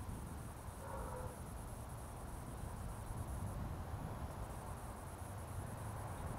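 Insects chirping steadily in a high, fast, even pulse over a low rumble; the chirping drops out briefly a little past the middle. A short pitched call sounds about a second in.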